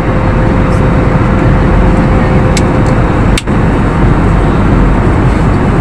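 Steady, loud cabin drone of a passenger airliner: the rushing noise of engines and air, with a faint steady hum. It dips briefly about three and a half seconds in.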